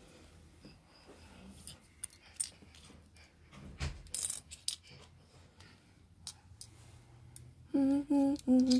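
Small plastic LEGO pieces clicking and clinking, with a plastic parts bag rustling in short bursts. Near the end, a person hums three short notes.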